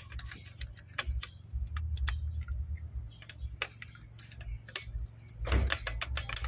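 Irregular light clicks and taps from handling a home-made 45 cm speargun while its line is knotted, with a denser, louder clatter about five and a half seconds in, over an uneven low rumble.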